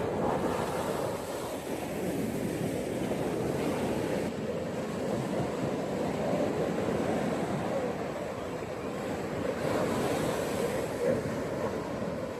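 Gentle ocean waves washing onto a beach, a steady surf noise that swells and eases every few seconds.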